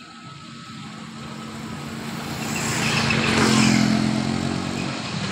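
A motor scooter passing close by on the road, its engine growing louder to a peak a little past halfway and then fading as it moves away.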